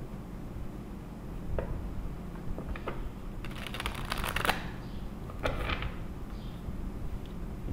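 A deck of cards being shuffled by hand: a few single taps, then a quick run of rapid riffling clicks about three and a half seconds in and a shorter flurry about two seconds later, over a steady low hum.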